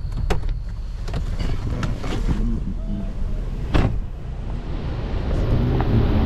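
Jeep Wrangler Rubicon's engine idling, a steady low rumble, with a couple of sharp clicks and a hiss building near the end.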